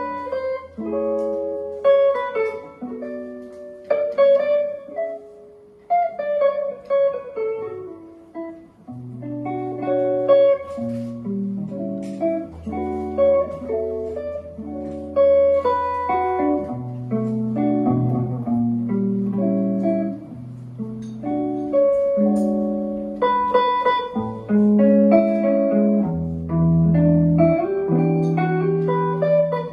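Guitar playing an unhurried jazz instrumental passage of chords and single notes over low bass notes, with piano accompaniment; no singing.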